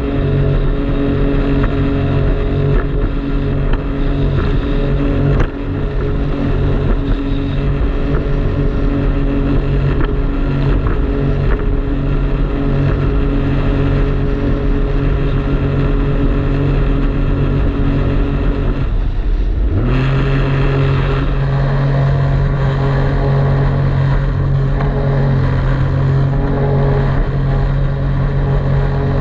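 Jet ski engine running steadily under way. About two-thirds of the way through, the throttle eases off briefly, then the engine comes back on and runs stronger.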